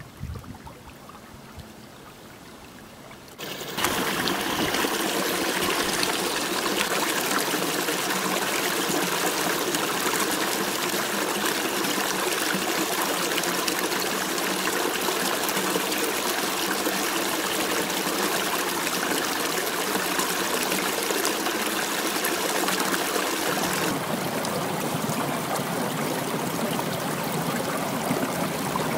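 Small spring-fed creek flowing over rocks and around ice, a steady watery trickle and rush. It is fainter for the first few seconds and much louder from about four seconds in.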